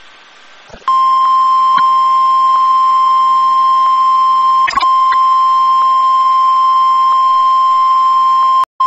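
NOAA Weather Radio warning alarm tone, the 1050 Hz single tone: one long, loud, steady beep that starts about a second in and cuts off sharply just before the end, with a brief dip about halfway through and faint radio hiss before it. It marks the start of a warning broadcast.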